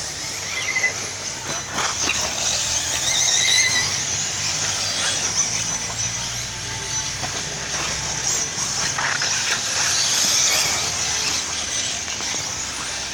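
Electric 4WD off-road RC buggies racing, a dense high-pitched whine of motors and drivetrains with short rising and falling streaks as they speed up and slow down, and scattered sharp clicks.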